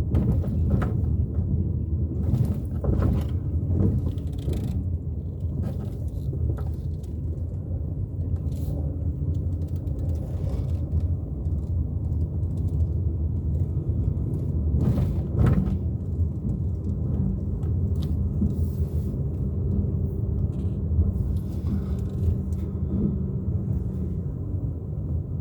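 Low, steady rumble of a car driving slowly, heard from inside the cabin, with a faint engine hum and scattered small knocks from the road surface.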